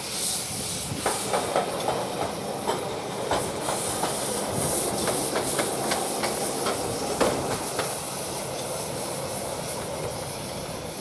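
Miniature live-steam model of Southern Railway Merchant Navy class locomotive 35004 Cunard White Star running slowly, with steam hissing steadily and many sharp clicks and knocks. The sound eases slightly near the end.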